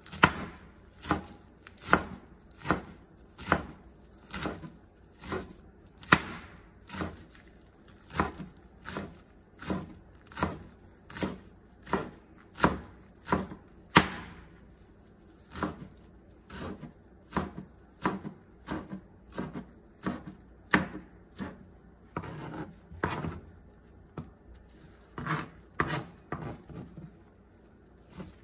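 Chef's knife chopping pumpkin flowers on a cutting board: a steady run of crisp knocks as the blade hits the board, about one every three-quarters of a second, with a short scraping sound about three-quarters of the way through.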